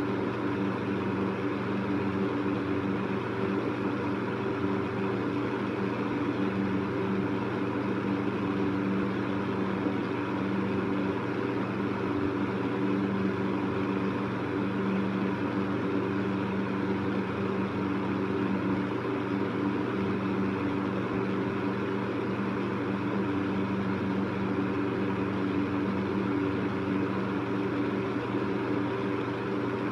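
Electric fan running steadily: an even rush of air over a low motor hum with a few steady tones.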